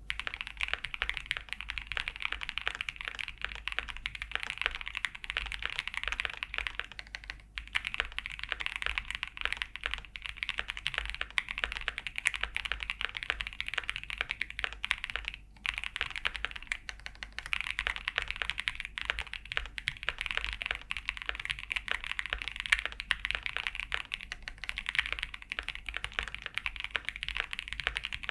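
ASUS ROG Azoth Extreme mechanical keyboard being typed on fast and continuously, a dense stream of keystrokes, with two brief pauses, about a quarter and about halfway through.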